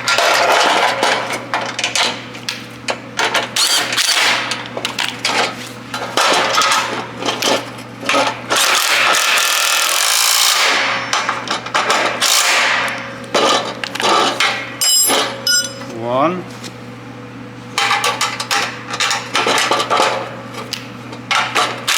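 A power driver tightening bumper bolts in repeated loud bursts, its motor whining up in pitch when the trigger is squeezed, with tool clatter on the metal between bursts.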